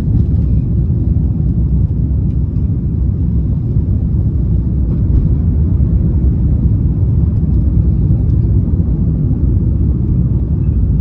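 Steady low rumble of an airliner in flight, heard from inside the cabin.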